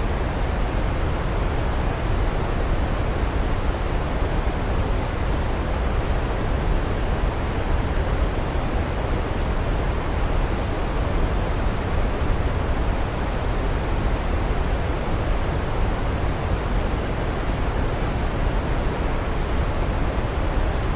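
Waterfall rushing, a steady, even noise weighted toward the low end, with no change throughout.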